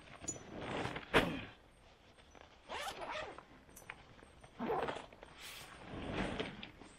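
Rucksack zip being pulled open in several short runs, with the bag's fabric rustling as it is handled, and a sharp click just over a second in.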